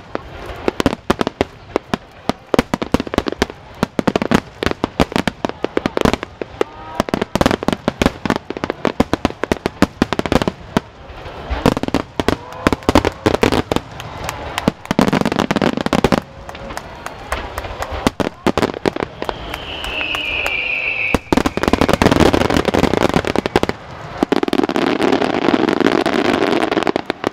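A wide starmine fireworks barrage: aerial shells bursting in rapid, overlapping succession, dozens of bangs and cracks. A brief falling whistle comes about 20 seconds in, and near the end the bursts thicken into a continuous din as large golden willow shells go off.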